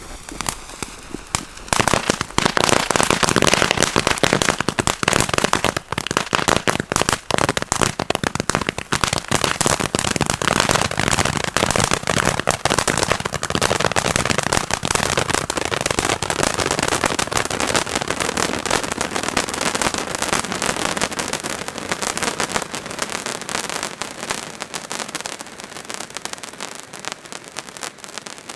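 Ground firework fountain spraying sparks with dense, rapid crackling. It starts about two seconds in and thins out toward the end.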